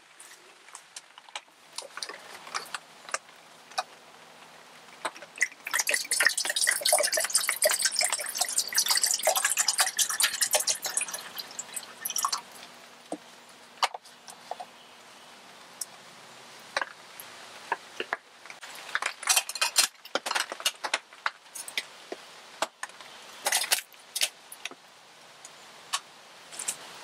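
Twig fire crackling and popping inside a stainless-steel wood-burning camp stove, densest from about six to twelve seconds in. Later come clusters of metallic clinks from a metal kettle on the stove.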